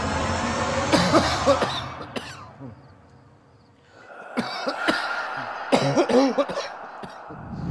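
A person coughing in several harsh fits: one about a second in, then after a short lull two more bunched fits around four to six and a half seconds in.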